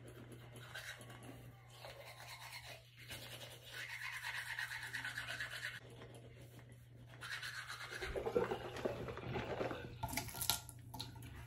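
Teeth being brushed with a toothbrush: a rhythmic scrubbing, with louder, rougher sounds over the last few seconds.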